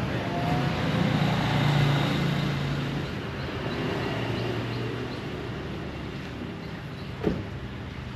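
A motor vehicle's engine running, swelling over the first few seconds and then fading as it passes. A short knock comes about seven seconds in.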